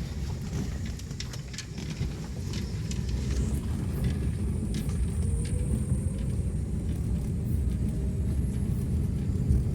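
Vehicle driving along a road: a steady low rumble of engine and road noise, with faint scattered ticks and rattles.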